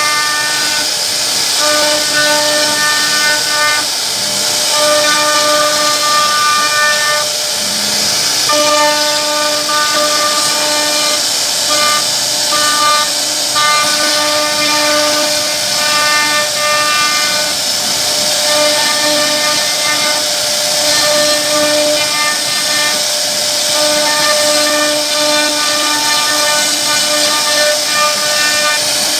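CNC router spindle running while its bit carves wood: a steady high-pitched hiss, with a whine that keeps one pitch and cuts in and out every second or two as the machine moves the bit.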